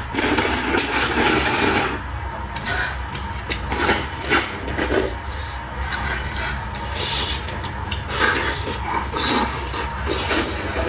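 Close-up mouth sounds of eating a large crab soup dumpling: a long wet slurp of broth through a straw in the first two seconds, then shorter irregular slurps and sips as the dumpling skin is bitten and broth is drunk from the dish.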